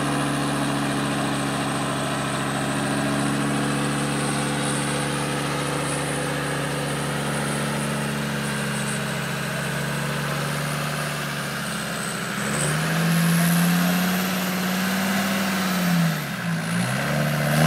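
Land Rover Defender 90's engine idling steadily, then revved up about two-thirds of the way in, held, let drop briefly and revved again near the end.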